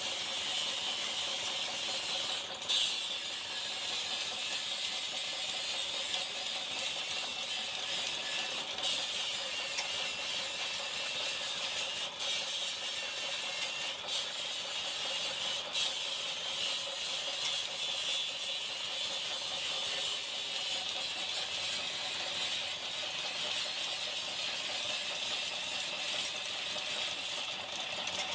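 Steady metalworking machine noise with a continuous hiss and a few brief clicks.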